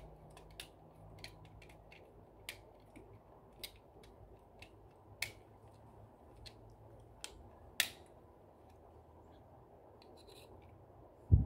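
Irregular light clicks and scrapes of a screwdriver working the terminal screws of an air conditioner switch to clamp a wire, with one louder dull thump near the end.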